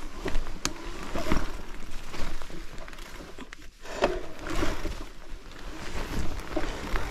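Mountain bike moving over rough, wet forest ground: irregular crunches, knocks and rattles, with a sharp click about two-thirds of a second in and a brief lull around the middle.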